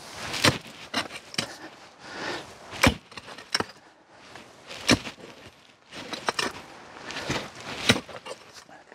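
A series of irregular sharp knocks and crunches, about ten over several seconds, with rustling between them.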